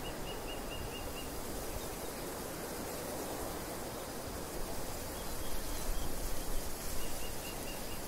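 Wind blowing across a field of ripening barley, a steady rushing hiss with gusts buffeting low that swell for a moment about six seconds in. A small bird calls quick series of short chirps, about five a second, near the start, around five seconds in and again near the end.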